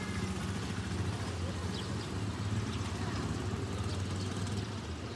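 Village outdoor ambience: a steady low engine-like hum runs throughout, with faint voices and a few short high chirps.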